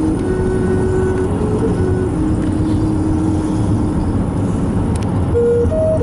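Steady road and engine noise heard from inside a moving car at highway speed, with slow held musical notes faintly over it.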